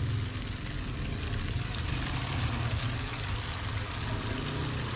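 Vegetable fritters (bakwan) frying in hot oil in a wok, a steady sizzle, with a low steady hum underneath.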